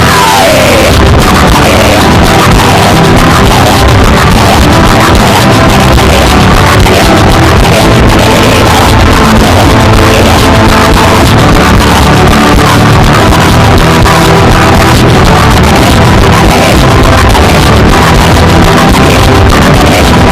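Loud, dense music that runs on without a break, with no speech.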